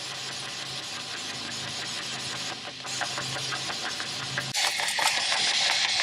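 Spirit box radio sweeping through stations: a steady run of rapid chopped static with a low hum under it, turning to a louder hiss about four and a half seconds in.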